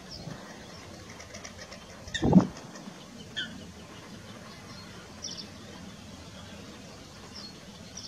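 Greylag goslings giving short high peeps now and then, over a low background hum of open air, with one short low thump about two seconds in.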